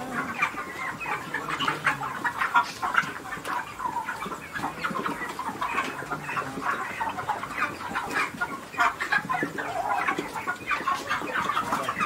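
A large flock of six-week-old broiler chickens clucking and chirping, with many short calls overlapping into a continuous chatter.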